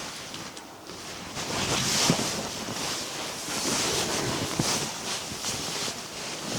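Wind gusting in a snowstorm: a rushing hiss that swells and fades in waves, with a few faint clicks.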